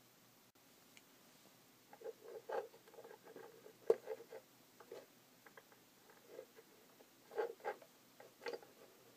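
Handling noise: irregular light taps, clicks and rustles of hookup wires, a small breadboard and a stepper motor's sheet-metal bracket being handled on a wooden table, coming in two clusters with one sharper tick among them.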